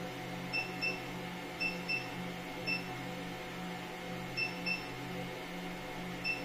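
Short high-pitched electronic beeps from the touchscreen control panel of an EMS body-sculpting machine as its frequency plus-button is tapped. There are eight beeps, mostly in quick pairs, over a steady low hum.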